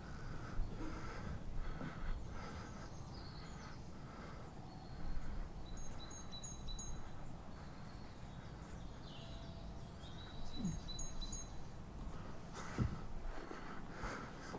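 Footsteps on snow at a steady walking pace, about two steps a second, that fade out after a few seconds and come back near the end. Small birds give short high chirps in between.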